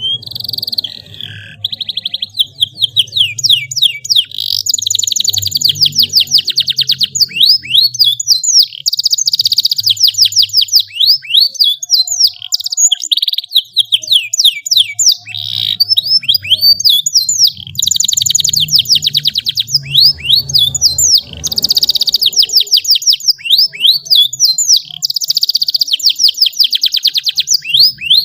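Domestic canary singing a long, loud song of fast trills and rolling phrases, one phrase after another with short pauses between them.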